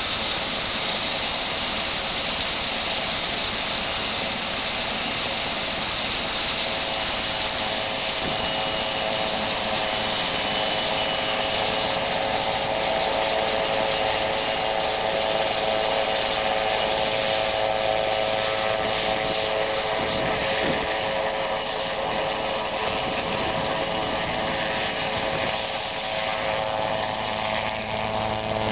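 Fox-type ultralight helicopter running with its engine and rotors turning: a steady engine note made of several pitched tones over a loud hiss of rotor wash. Around the middle the tones grow stronger as it powers up to lift off.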